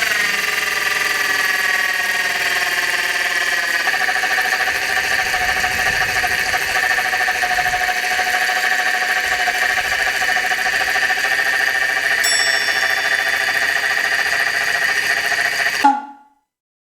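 2008 Toyota Corolla Rumion's engine idling just after starting, with a steady high-pitched whine from the engine bay. The owner's tags put this abnormal noise down to the alternator. The pitch sinks slightly over the first few seconds as the idle settles, then holds steady until it cuts off suddenly near the end.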